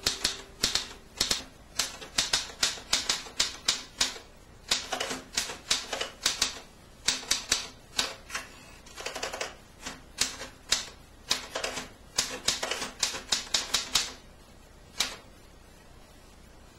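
Quick runs of sharp clicking taps, several a second, in bursts with short pauses between them. The taps die away near the end.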